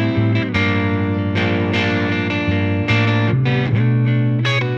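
Background music: an electric guitar with distortion, its chords changing every half second to a second.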